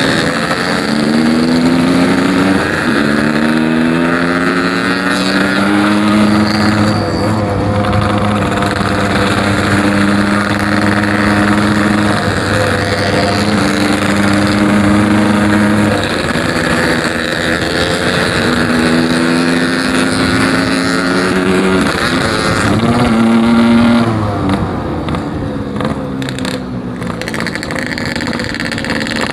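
Yamaha RX-King's 135 cc two-stroke single-cylinder engine under way, accelerating through the gears: the pitch climbs, drops at each shift and climbs again, with stretches held steady, then eases off and drops lower near the end. The rider judges the carburettor jetting too rich, blubbering at low revs but pulling cleanly at high revs.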